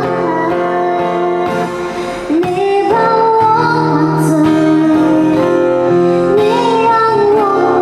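A woman singing into a microphone, accompanied by acoustic guitar.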